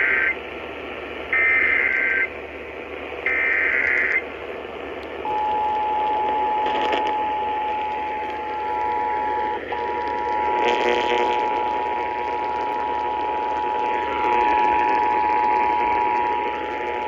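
Emergency Alert System tornado warning received off the air: the end of one burst of SAME digital header tones and then two more short screeching bursts about two seconds apart, followed about five seconds in by the EAS two-tone attention signal (853 and 960 Hz played together), a steady two-note tone that holds for about twelve seconds with a brief dropout near the middle, over background hiss.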